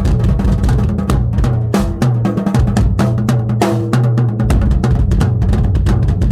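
Tama drum kit with Evans heads played in a busy, fast pattern of bass drum and snare strokes with rimshots. From about two seconds in, the bass drum drops out for a couple of seconds while the toms ring at steady pitches.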